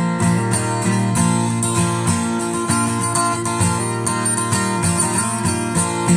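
Guitar music: a plucked string instrument strummed and picked in a continuous run of notes.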